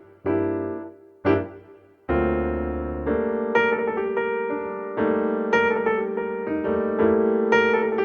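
Background piano music: a few separate chords that die away, then from about two seconds in a fuller, sustained keyboard passage with repeated notes.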